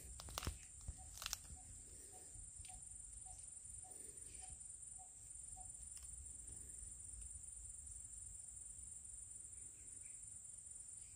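Faint steady high-pitched drone of insects in grassy farmland, with a few rustling steps in dry grass near the start and a faint pip repeating about two to three times a second through the first half.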